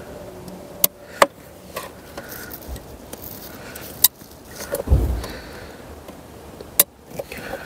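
A screwdriver prying at the plastic locking tab of a wiring plug on a fuse box: a few sharp separate clicks and small knocks, with a duller thump about five seconds in.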